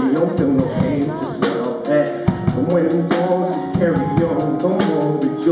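Live band music: a boy singing into a handheld microphone over a drum kit keeping a steady beat on the cymbals.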